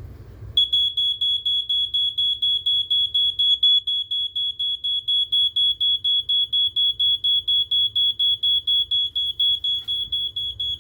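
BRK 86RAC smoke alarm sounding its test: a high-pitched piezo horn beeping in a fast, even pulse of about four or five beeps a second, starting about half a second in.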